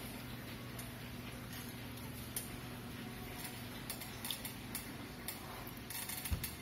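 Quiet room tone: a steady low hum with scattered faint clicks, which come more often near the end.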